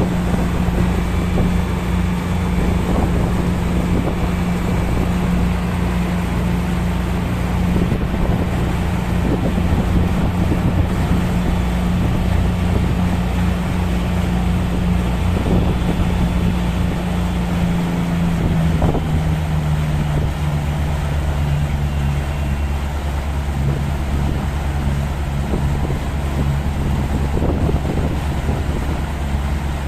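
A vessel's engine running with a steady low hum, its pitch dropping a little about two-thirds of the way through as it slows. Wind buffets the microphone throughout.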